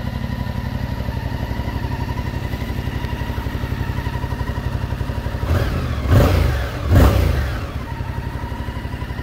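Yamaha XSR700's 689 cc parallel-twin engine idling with a steady pulse, then blipped twice, about five and a half and seven seconds in, the revs rising and falling back to idle each time.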